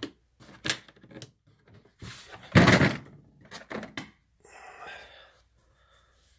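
Clicks and knocks of hands handling furnace parts, with one loud thunk about two and a half seconds in and a short soft rustle after it.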